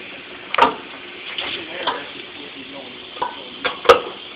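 Scattered sharp clicks and knocks of hand tools and plastic trim being worked loose from a car's front end, about five in all, the loudest near the end.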